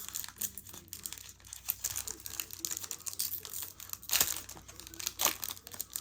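Crinkling and rustling as Pokémon trading cards and a foil booster pack are handled, with sharper swishes about four and five seconds in.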